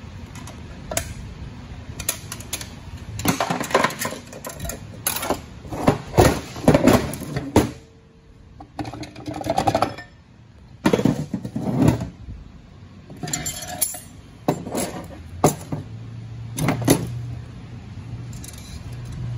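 Irregular metallic clinks and knocks of automatic transmission internals, a 4L60E's clutch drum, plates and small parts, being pulled from the aluminium case and set down on a metal bench.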